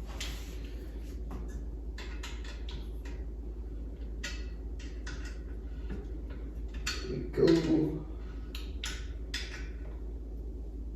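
Scattered light clicks and small knocks of metal parts being handled while a TV wall-mount bracket's tilt is adjusted, over a steady low hum. A louder, short sound stands out about seven and a half seconds in.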